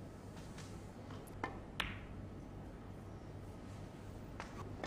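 Snooker balls clicking against each other: two sharp clicks about a third of a second apart, about a second and a half in, the second ringing briefly. A couple of fainter clicks follow near the end, over a steady low hum.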